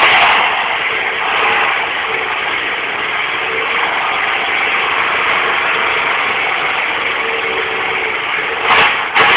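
Off-road vehicle engine idling steadily under a loud, even rushing hiss, with two brief loud knocks near the end.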